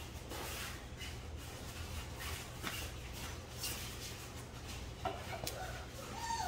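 Shuffling and light footsteps on a tile floor, with scattered soft clicks and rustles over a steady low hum.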